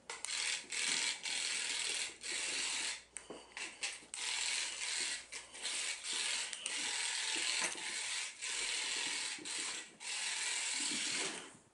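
Mechanical ratcheting from a dragonfly cat toy's mechanism, running in long spurts with brief breaks.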